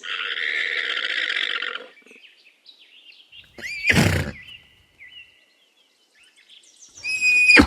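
Alpaca calls: a harsh, noisy cry lasting nearly two seconds, then a short loud shrill call about four seconds in, and another high-pitched call near the end.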